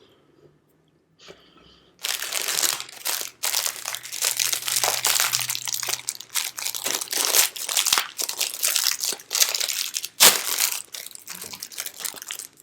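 Thin plastic wrapper of a marshmallow pie crinkling and crackling as it is handled and torn open. It starts about two seconds in as a dense, continuous run of crackles, with one sharper crack near the end.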